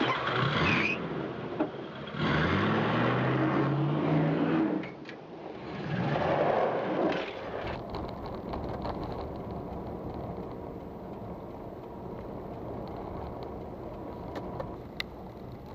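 A short intro sound effect with swooshes and a rising tone, lasting about seven seconds. Then steady engine and road noise of a car driving, heard inside the cabin through a dashcam's microphone, with a single click near the end.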